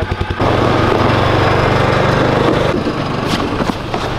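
Polaris Ranger SP side-by-side's engine idling with a fast, even pulse, then revving up about half a second in and running steadily under throttle, easing off a little near the end. A couple of short crunches near the end.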